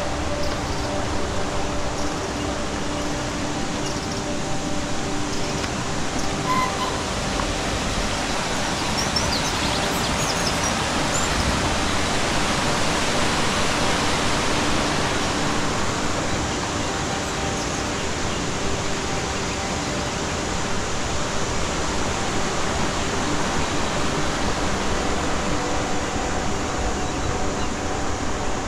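Rushing water of a small rocky mountain stream tumbling over stones: a steady rush that swells a little around the middle and eases again.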